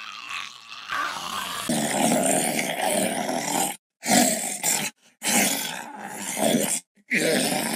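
Zombie voice sound effects from a Spirit Halloween animatronic's built-in speaker. A rough, growling sound grows loud about two seconds in and runs in stretches, cut off abruptly by short silences about a second apart.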